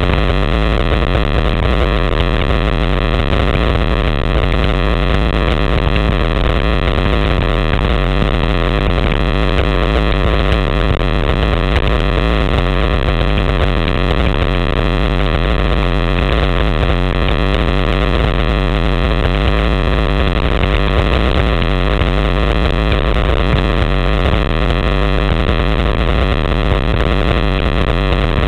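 Steady, loud wind noise rushing over the microphone of a camera carried on a road bicycle descending at speed.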